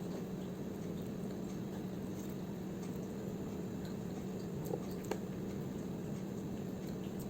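Steady low hum with a couple of faint light clicks about five seconds in.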